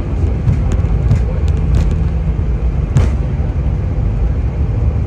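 Cabin noise of an Airbus A320 rolling along the runway after landing: a loud, steady rumble of engines and wheels, with a few sharp knocks, the loudest about three seconds in.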